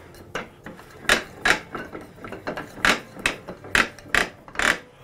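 Cast-iron pattern maker's vise being wound by its screw handle, the jaws closing. It gives a run of sharp clacks, about nine in all, several coming in quick pairs.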